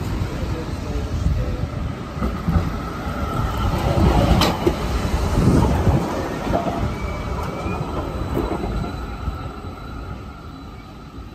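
Low-floor electric tram passing close by on curved track: a rumble of wheels with a thin, steady wheel squeal. It is loudest as the tram goes past, about halfway through, with a single sharp click from the rails, then fades as it moves away.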